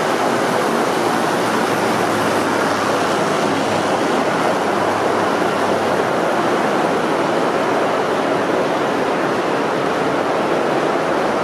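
Model train, an electric locomotive hauling a long rake of passenger coaches, rolling past close by: a steady rushing noise of wheels running on the rails.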